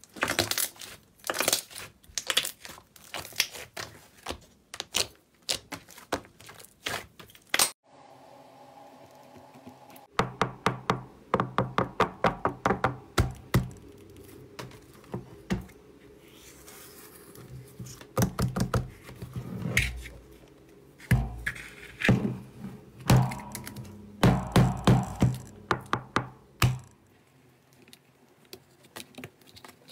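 Hands pressing and squeezing slime, making rapid trains of sharp popping and clicking sounds as air pockets burst under the fingers. Soft background music plays beneath the popping from about a quarter of the way in until near the end.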